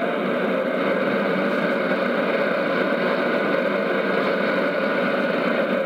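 Steady shortwave static and hiss from a JRC NRD-525G communications receiver tuned to 5940 kHz in AM, with no clear speech or music coming through.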